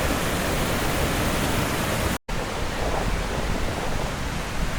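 Steady rushing roar of a waterfall, cut off for an instant about two seconds in, then resuming slightly duller.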